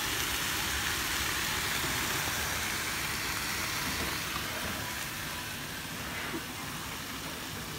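Ribeye steaks sizzling on a grill rack over wood coals: a steady hiss with a couple of small pops.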